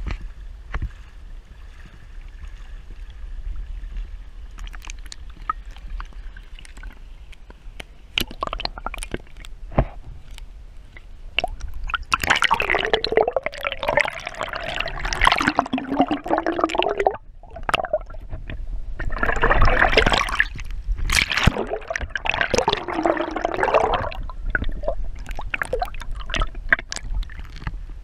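River water gurgling and sloshing around a submerged camera's microphone. Two long, loud stretches of bubbling gurgle come about twelve seconds in and again around twenty seconds, between lighter splashing and handling knocks.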